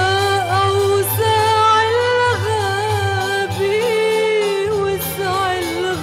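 Music: a female voice sings a long, wavering melodic line without clear words over orchestral accompaniment with a pulsing bass.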